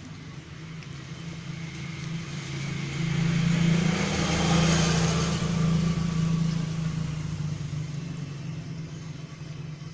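A road vehicle passing by: its sound swells to a peak about four to five seconds in, then fades away over a steady low hum.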